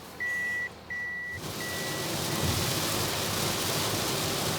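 Electronic beeps at one fixed pitch, repeating about every 0.7 s, end about a second and a half in. The sound then switches abruptly to the steady rush of a vehicle driving in rain, heard from inside.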